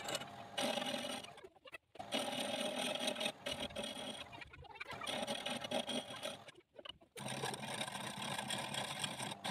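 Homemade belt-driven wood lathe spinning a wooden blank while a hand chisel cuts into it, a steady scraping hiss of the tool on the turning wood. The sound drops out briefly three times.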